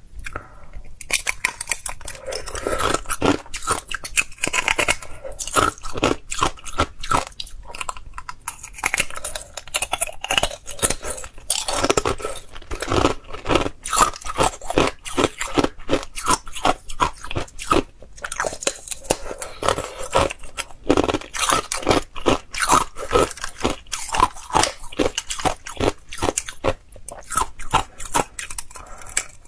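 Thin-walled clear ice cubes being bitten and chewed: a rapid, almost continuous run of sharp cracking and crunching, with a few short pauses.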